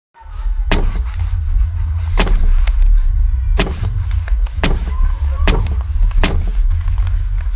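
Six heavy blows struck one after another, each about a second apart, as a man brings a hand-held object down repeatedly. Under them a deep, steady low drone starts at once, out of silence.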